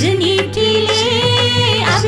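Tamil devotional song music: a held melody line over a steady low drone.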